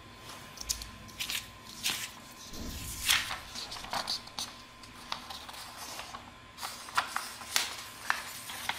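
A sheet of A4 paper being handled and folded in half: rustling, with a dozen or so sharp crackles as the sheet is bent and creased.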